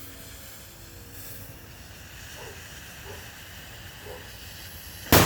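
A homemade firecracker's lit fuse hissing steadily, then one loud bang near the end as the firecracker goes off.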